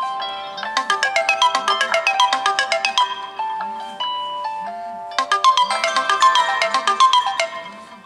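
Several phone ringtones playing over each other: the alarm tones of a Samsung Galaxy A3 and a Galaxy S4 mini, joined partway through by the HTC 8S ringing for an incoming call. The overlapping electronic melodies are dense, with flurries of quick chiming notes recurring about every four and a half seconds.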